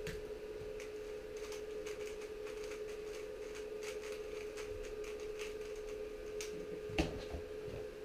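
TengYun speedcube being turned quickly, a run of light plastic clicks and clacks as its layers turn, with one louder thump about seven seconds in. A faint steady hum sounds beneath.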